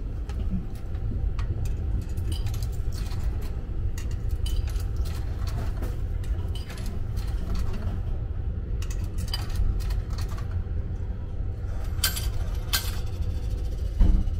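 Coins clinking as they are fed one by one into a shower-card vending machine, with a few louder metallic clinks near the end, over the steady low rumble of the moving sleeper train.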